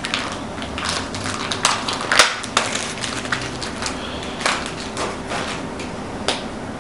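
Hands opening a small pouch of lock-picking tools: rustling of the pouch and packaging with scattered sharp clicks and taps, the sharpest about two seconds in.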